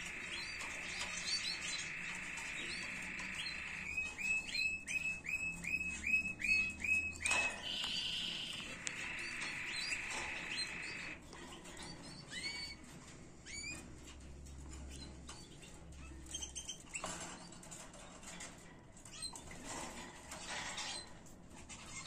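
Canary singing: a sustained high trill, then a run of repeated swooping notes at about three a second, then another trill. After that the song breaks into scattered chirps mixed with sharp clicks.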